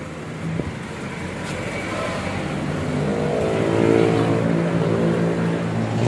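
A motor vehicle's engine passing, its pitch climbing and then dropping away over about three seconds, loudest in the middle. A steady low hum runs underneath.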